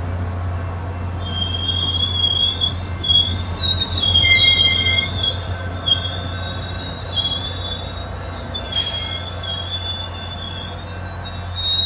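SunRail bilevel commuter train's steel wheels squealing on the rails as it pulls out of the station. Several high squeal tones start about a second in and shift in pitch, over a steady low drone.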